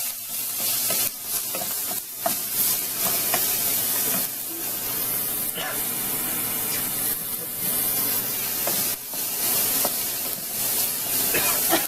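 Chicken and whole shishito peppers sizzling steadily in hot oil in a pan, with scattered clicks from stirring.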